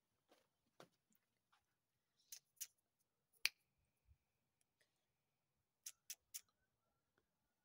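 Near silence broken by six short, sharp clicks: two about two seconds in, a louder one about three and a half seconds in, and three in quick succession near six seconds.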